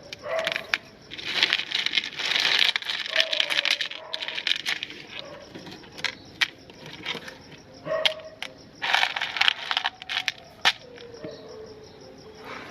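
Meat grinder crushing a hard, brittle item: irregular crunching and crackling with many sharp clicks and snaps, coming in uneven bursts.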